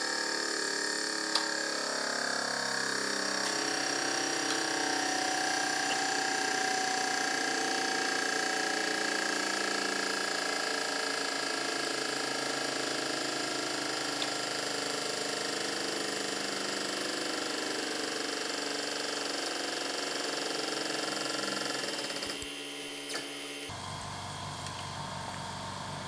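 Hydraulic press pump running steadily as the ram's narrow nozzle crushes a motorcycle helmet. There is a sharp snap from the helmet's plastic about a second in and a fainter one midway. The running sound drops off about 22 seconds in.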